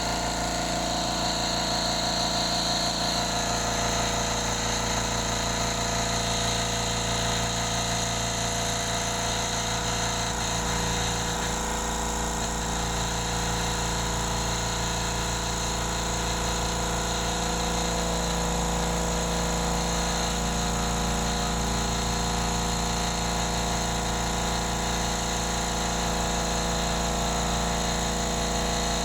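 Mitsushi XH30L 600 W silent-type air compressor running steadily, its motor and pump filling the emptied 30-litre tank.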